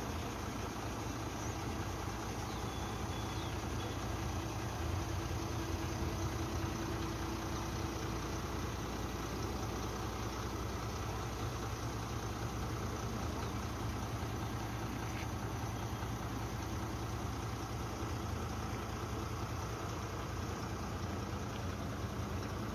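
A vehicle engine idling steadily under an even background hiss.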